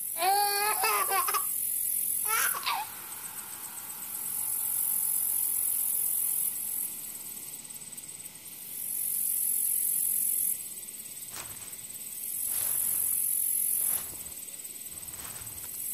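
A high-pitched, wavering giggle at the start, with a second short sliding cry about two seconds in. A high hiss swells and falls away in long stretches, and a few footsteps come near the end.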